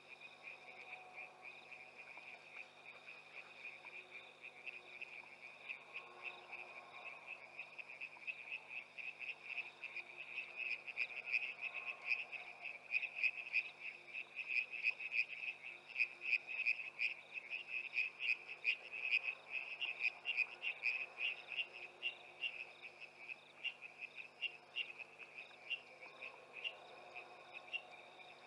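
Night chorus of calling frogs and insects: a steady high trill, with rapid pulsed calls swelling louder through the middle and easing off near the end.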